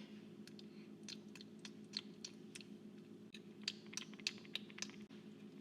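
Faint crunchy chewing: irregular sharp crunches, a few each second, over a steady low hum.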